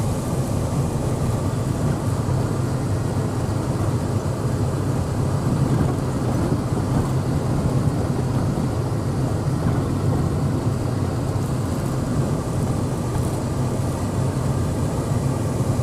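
Steady engine and road noise of a vehicle driving along, heard from inside the cab, with a low hum that holds level throughout.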